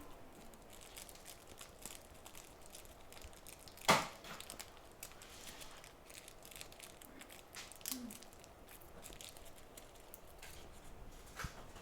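Small tools being handled at a microsoldering bench: faint scattered clicks and rustles, with one sharper click about four seconds in.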